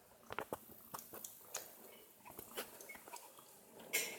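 Kittens making faint, irregular wet clicking and smacking sounds, like chewing or suckling, with a short breathy burst near the end.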